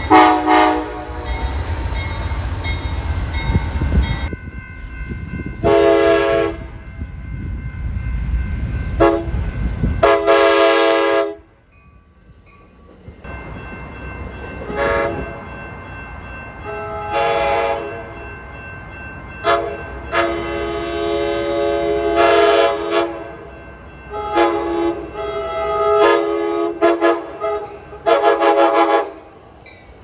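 Amtrak Surfliner cab car horn, a multi-tone air horn chord, sounding a series of blasts. The first few blasts come over the low rumble of a passing train. After an abrupt cut, a longer run of blasts sounds as the train approaches a grade crossing.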